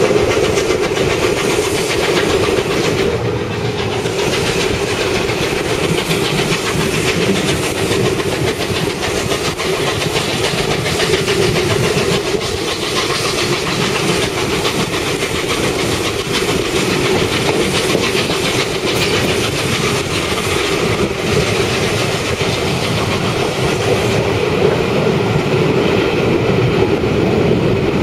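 A train running on the rails: steady, loud noise of wheels on track, with no break or pause.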